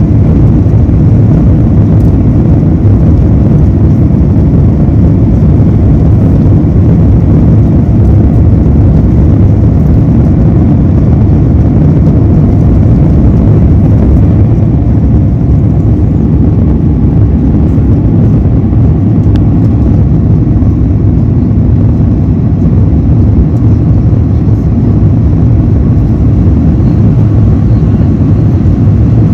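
Airbus A350-900 cabin noise in the climb: a steady low rumble of its Rolls-Royce Trent XWB engines and airflow over the fuselage.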